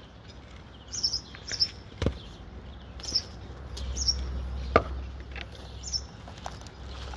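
Birds chirping on and off, with two sharp knocks from work on the timber bearers, one about two seconds in and a louder one just before five seconds. A low rumble runs underneath for a few seconds in the middle.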